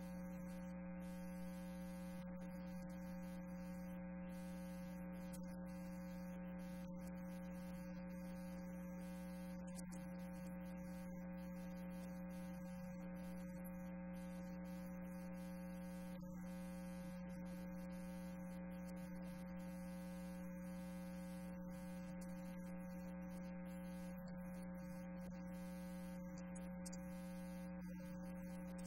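Steady electrical hum: one constant low tone with a ladder of fainter higher tones above it, unchanging throughout.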